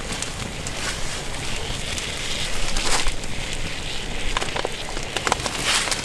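Wood campfire crackling, with scattered sharp pops; a louder pop comes about three seconds in and another near the end.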